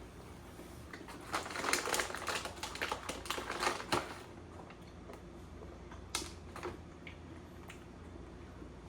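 A quick, dense run of small clicks and taps lasting about three seconds, then a few scattered clicks.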